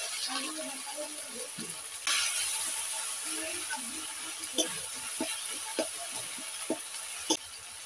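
Food frying in a pan, with a sizzle that jumps up suddenly about two seconds in. A ladle then knocks against the pan about five times near the end.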